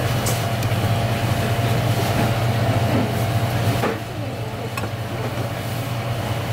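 A steady low mechanical hum of background machinery, easing off a little about four seconds in, with a few faint clicks and handling sounds as wet conch meat is rubbed on a plastic cutting board.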